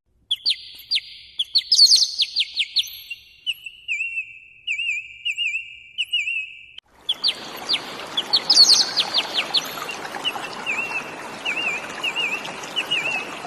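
A songbird calling: a quick run of sharp, falling chirps, then a string of repeated wavering whistled notes, about two a second. After a brief break the same sequence comes again over a steady hiss.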